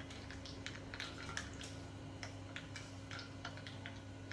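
A spoon scraping and clicking against a small bowl as thick spinach and green chili paste is scooped out, in faint, irregular ticks over a steady low hum.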